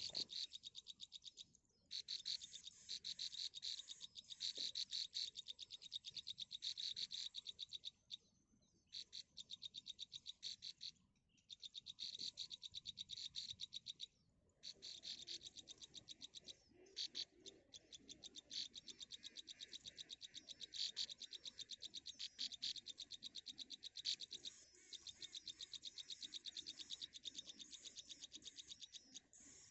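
A rapid, high-pitched pulsing trill from a small calling animal, running in long bursts broken by short pauses.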